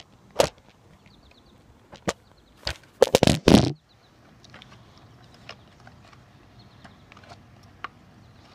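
Close handling knocks and clatter right at the microphone: a few sharp knocks, then a loud burst of rubbing and knocking about three seconds in, followed by faint scattered ticks.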